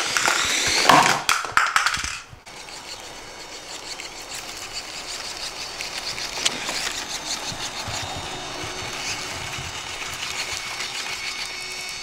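Toy remote-control off-road truck's small electric motor and gears whining as it drives. It is louder and rougher for the first two seconds, then a steadier, quieter whine.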